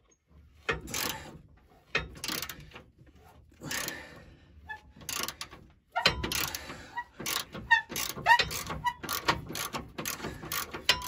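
Socket ratchet wrench clicking in short strokes on a stiff, rusted bolt under a truck, the strokes coming faster and closer together from about six seconds in, with a few short squeaks in the middle of that run.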